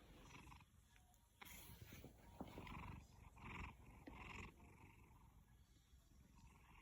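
A sleeping domestic cat snoring faintly, a soft breath sound repeating about once a second.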